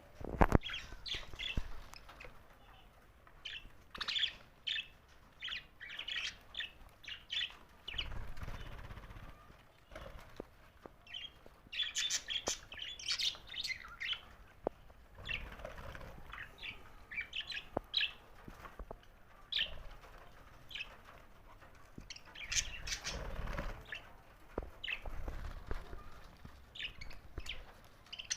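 Budgerigars chirping in quick, short, high calls that come in clusters, with a sharp click just after the start.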